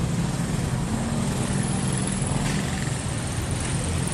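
Steady wind and road noise from a moving e-bike, picked up by the 360 camera riding along, with most of the sound low and even throughout.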